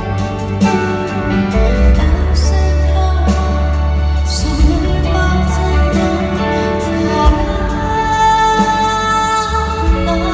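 Live band playing a slow pop-rock ballad, with drums and a heavy bass under sustained chords and a singing voice.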